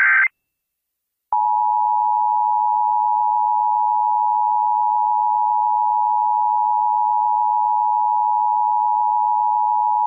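Emergency Alert System attention signal: the two-tone alert held steady for about nine seconds, starting about a second in and cutting off abruptly. It is preceded by the last instant of a warbling SAME data burst.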